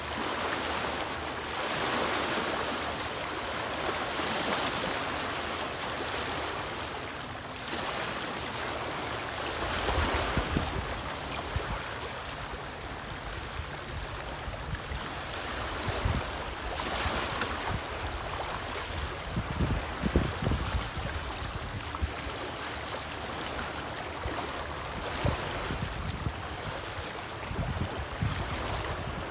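Small wind-driven waves lapping and splashing against a rocky lakeshore, swelling and easing every second or two. From about a third of the way in, a low wind rumble on the microphone joins them.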